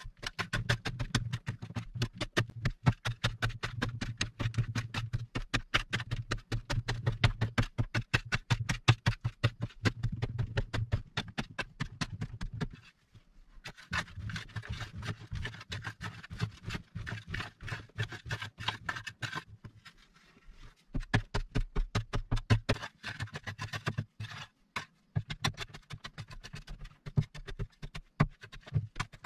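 A long-handled digging tool scraping and chipping at a packed earth wall in quick strokes, about four a second, with loose soil crumbling down; the strokes pause briefly about halfway through.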